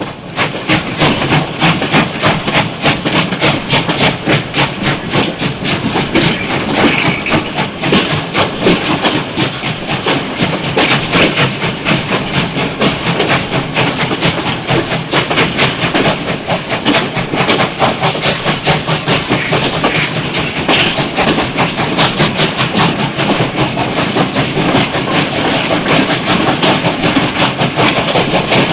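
Steam locomotive running at a steady pace, with a rapid, even rhythm of beats over a constant hiss. It fades in at the very start, then holds level.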